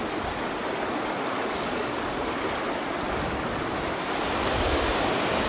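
Fast-flowing mountain river rushing over riffles, a steady even rush that grows a little louder about four seconds in, with wind buffeting the microphone.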